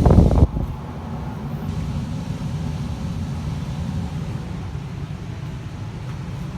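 Evcon 80% gas furnace's blower fan running on with a steady low rumble after the burners have shut off, cooling the heat exchanger before the fan-off delay ends. A loud rush of noise on the microphone cuts off about half a second in.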